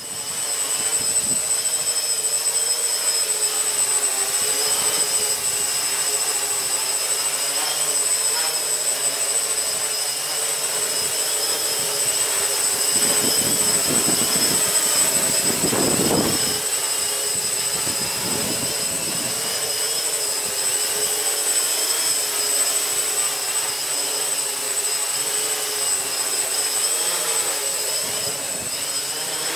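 Multicopter's electric motors and propellers running steadily in flight, a high steady whine over a rushing hiss. Wind buffets the microphone in low gusts around the middle.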